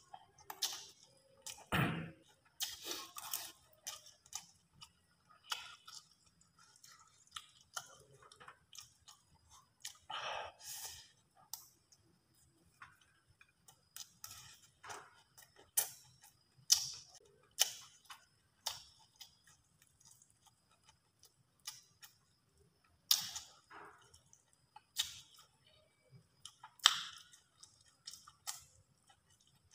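A man chewing and eating rice and grilled fish close to the microphone: wet mouth sounds with sharp, irregular smacks and clicks.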